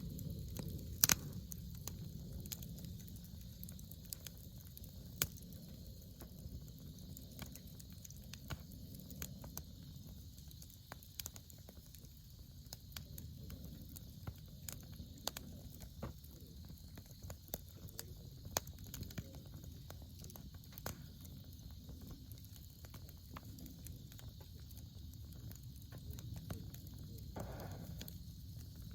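Wood campfire burning, with irregular sharp crackles and pops over a steady low rumble; the loudest pop comes about a second in.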